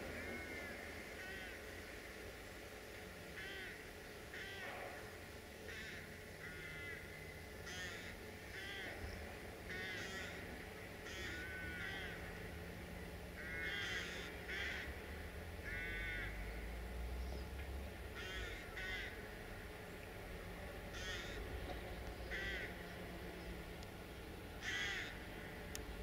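Crows cawing repeatedly: short harsh calls, often two or three in quick succession, over a low steady engine hum.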